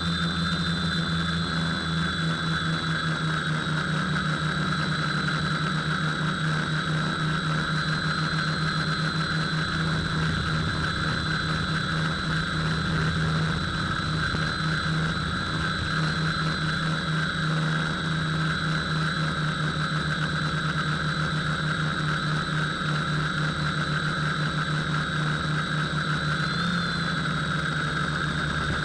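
Electric motor and propeller of an FPV aircraft running at a steady throttle, heard from the onboard camera: a constant hum with a thin high whine. The pitch shifts briefly near the end.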